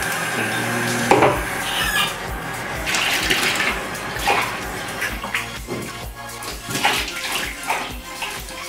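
Faucet water running steadily into a plastic bucket in a utility sink, filling it with soapy water, over background music with a steady beat.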